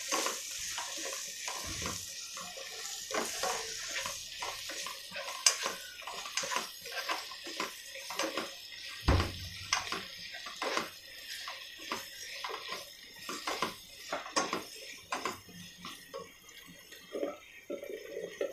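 A plastic spatula stirring sliced onions and green chillies frying in a pan, with frequent irregular knocks and scrapes against the pan. A light sizzle is under it, stronger in the first few seconds and then fading.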